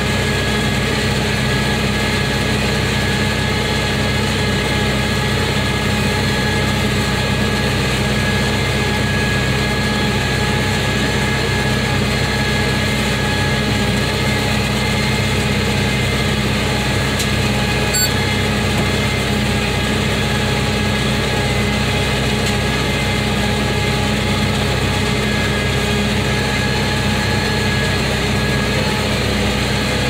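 Tractor engine running at a steady speed, driving a New Holland round baler through its PTO shaft as the baler picks up hay.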